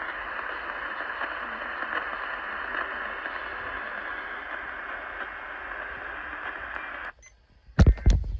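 Steady radio static hiss from a receiver. It cuts off abruptly about seven seconds in, and after a short gap come two loud clicks near the end.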